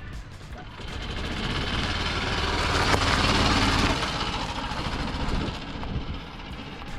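A golf cart drives up close, its motor humming under the tyre noise. It gets louder to a peak about three seconds in, then eases off.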